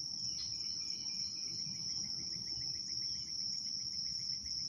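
Insects trilling in one steady, high-pitched drone, with a quick run of short chirps in the middle and a low rumble underneath.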